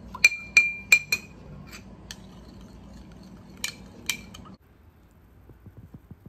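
Metal spoon clinking against a small glass dish while stirring an oil-and-lime-juice salad dressing. There is a quick run of ringing clinks in the first second, a few lighter ones after, and two more about four seconds in.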